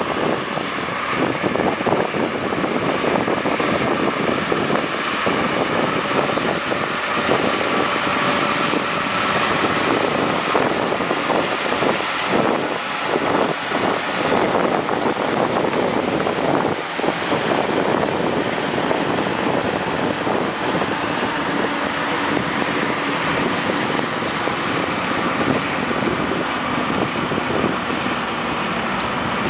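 Heavy diesel machinery running steadily and loudly, with a thin high whine that comes in a few seconds in and fades out near the end.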